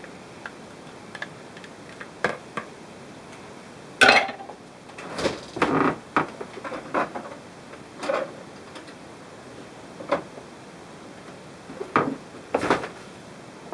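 Scattered clicks and knocks of kitchen utensils and containers being handled and set down, irregular, with the loudest knock about four seconds in and a quick cluster just after.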